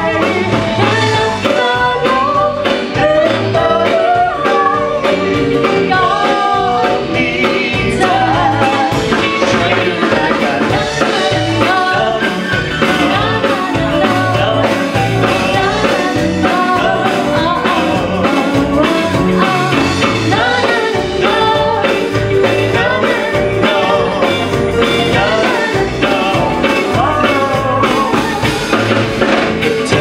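Male and female singers performing a pop duet live with a band of keyboard, drums and electric guitar, with a steady beat.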